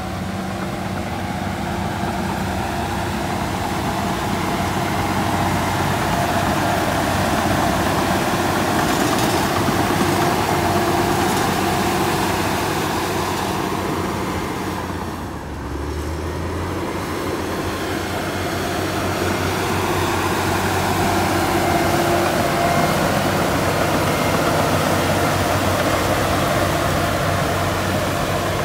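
Shantui crawler bulldozer's diesel engine running steadily as the machine pushes soil, a constant low engine note with a dip in level about fifteen seconds in.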